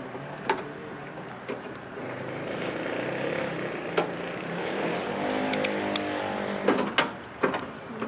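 Scattered clicks and knocks of parts being handled at a car door latch, over a steady mechanical hum that grows louder from about two seconds in and drops away near the end.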